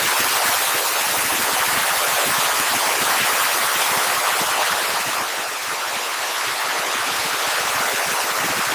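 Loud, steady static hiss like an untuned TV, with no tone or rhythm in it.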